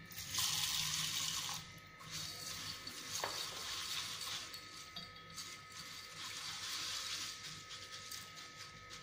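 Water poured from a jug into a steel bowl of whole masoor lentils for about a second and a half, then a hand swishing and rubbing the lentils in the water to wash them.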